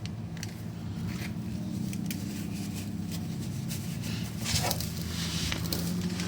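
Faint scraping and rubbing as a new spin-on oil filter is turned by hand onto its mount until it snugs up, with a few light clicks and a louder scrape about halfway through. A steady low hum lies underneath.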